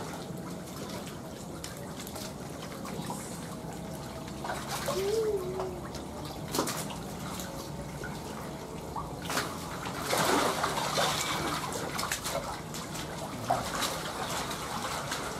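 Shallow muddy pond water splashing and sloshing as a person wades and sweeps a hand net through it to catch catfish, over a steady trickle of water. The loudest splashing comes about ten seconds in.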